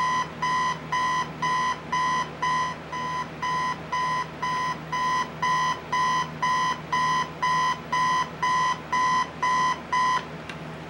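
1993 GE digital clock radio's alarm beeping: short, even beeps about two a second, which stop near the end.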